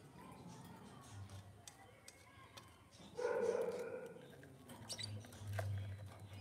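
A dog gives one drawn-out bark about three seconds in, followed by a few faint sharp clicks near the end.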